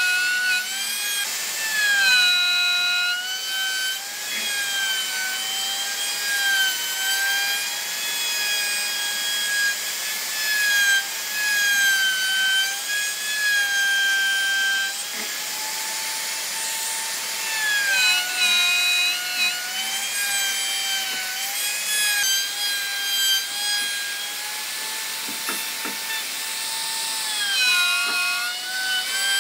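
An electric power tool's motor whining steadily as it works wood, its pitch sagging briefly and recovering every few seconds as it is pushed into the wood, with a rasping of the wood underneath.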